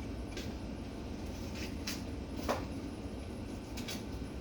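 Several light clicks and knocks of food packages and containers being handled and set down, the sharpest about two and a half seconds in, over a steady low hum.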